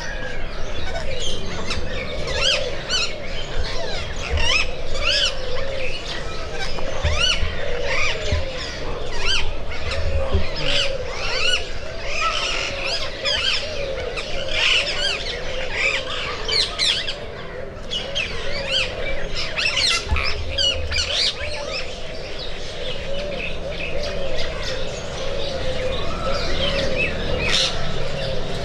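A dense chorus of many birds chirping and calling at once, with quick overlapping chirps that rise and fall in pitch and never let up.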